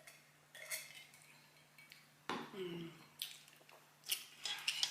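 Eating at a table: cutlery and dishes clinking in several sharp, separate clinks. About two seconds in comes one short, low vocal sound that falls in pitch.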